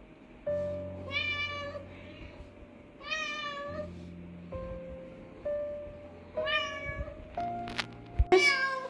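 Domestic cat meowing four times, short calls spaced a couple of seconds apart, the last one the loudest.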